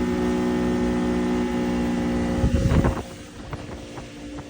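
Old 60 hp Mercury oil-injected two-stroke outboard running steadily. About two and a half seconds in there is a brief loud rush of noise, then the engine sound falls much quieter: the motor is losing power, which the owners put down to fuel starvation from a collapsed fuel line.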